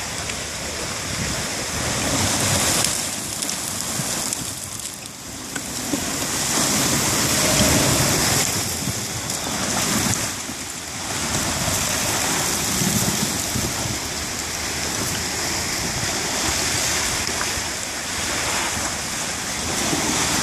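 River ice going out at spring breakup: broken floes and slush grinding and crunching as the moving ice pushes up the bank. It makes a steady rushing, hissing wash that swells and eases every few seconds.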